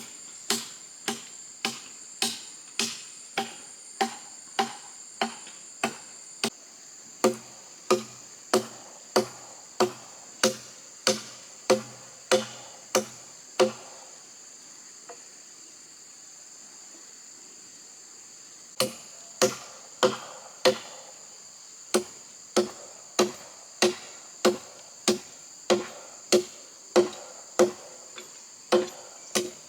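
Hammer driving nails into a wooden frame: steady ringing blows about two a second, stopping for a few seconds midway, then resuming. Insects drone steadily in the background.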